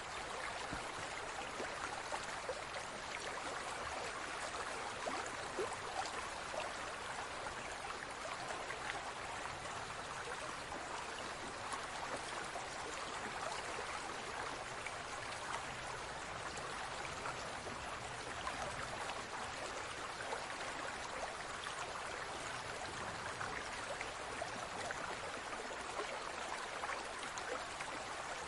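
Large aquarium's circulating water, a steady trickling and bubbling with many small splashes.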